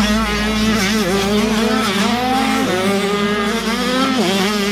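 Several 85cc two-stroke motocross bikes racing together, their engines revving up and down as the riders work the throttle. One engine's pitch drops sharply about four seconds in, then climbs again.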